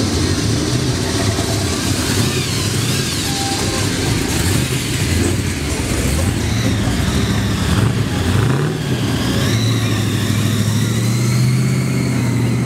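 Car engines running with a deep note as cars drive slowly past one after another. One engine revs up briefly about two-thirds of the way through, then a steady low engine note holds near the end.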